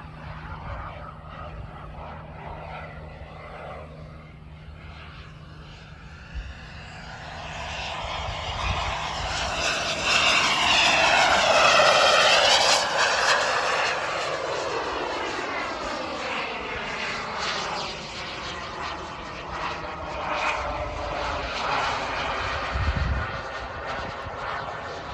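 Behotec 220 turbine engine of a 1/7.75-scale RC F-4 Phantom jet making a pass: the turbine noise builds over several seconds, is loudest about ten to thirteen seconds in as the jet goes by, then fades with a falling pitch as it flies away.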